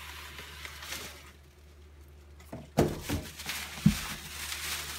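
Bubble wrap and a cardboard box rustling and scraping as a bubble-wrapped exhaust muffler is pulled out of the box, with two sharp thumps about three and four seconds in.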